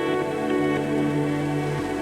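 Background music: a calm, ambient soundtrack of sustained tones.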